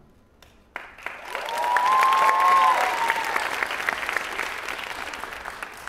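Audience applauding and cheering. The clapping starts about a second in, swells and then tapers off, with a high held cheer from the crowd near the loudest point.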